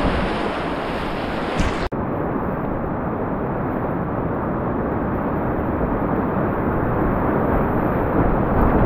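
Rushing whitewater of a river rapid, a steady rush of water as heard from a kayak, with a momentary break about two seconds in.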